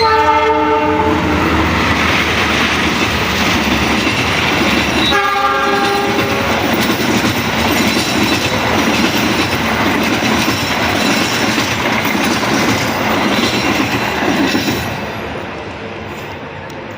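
An Indonesian train sounds its horn twice, a chord of about a second and a half at the start and a shorter one about five seconds in. It passes close by with loud, steady wheel-on-rail noise, which dies away from about fifteen seconds in.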